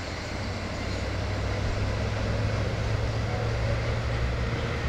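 A distant engine droning low and steady, swelling slightly through the middle.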